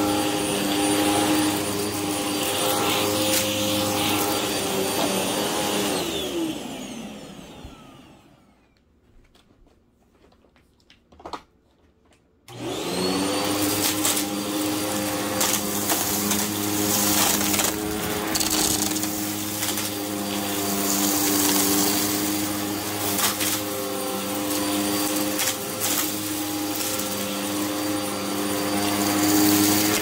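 Hoover WindTunnel upright vacuum cleaner running with its brush roll spinning on carpet. About six seconds in it is switched off and its motor winds down to quiet, there is a click or two, and a few seconds later it starts up again and runs steadily, with short clicks and rattles as it picks up debris.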